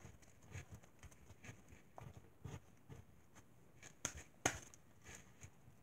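Homemade slime being kneaded and squished between the hands: faint, irregular sticky clicks and squelches, with two louder pops about four seconds in. A fresh sticky batch is being worked into overactivated slime.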